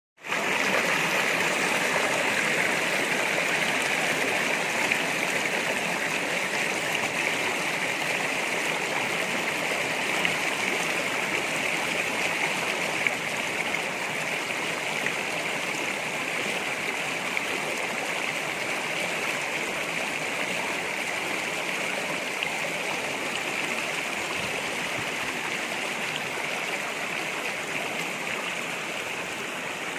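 Shallow rocky stream running over stones and small cascades: a steady rush of flowing water that eases off slightly toward the end.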